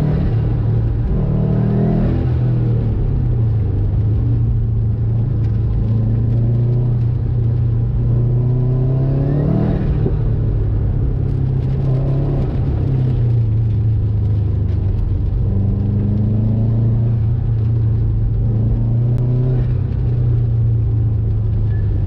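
Turbocharged Subaru Impreza GC8 flat-four boxer engine driven hard on a competition run, its revs climbing and dropping again several times as the car accelerates and slows between corners.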